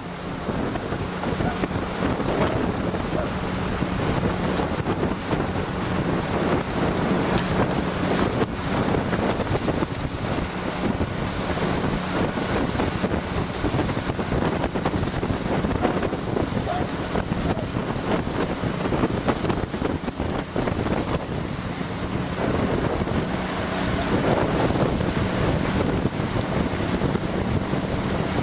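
Wind buffeting the microphone over the steady hum of a following motorboat's engine, with water rushing.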